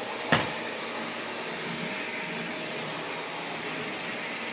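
Vacuum cleaner running steadily, with one sharp knock about a third of a second in.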